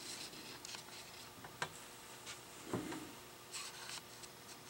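Faint handling noise from fingers turning an opened automotive relay and its wires: a few soft rubs and light clicks, with one low soft knock a little after halfway.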